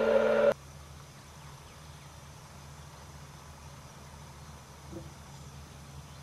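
A loud, steady-pitched motor whine cuts off abruptly about half a second in. Faint outdoor background follows, with a low steady hum and one small click near the end.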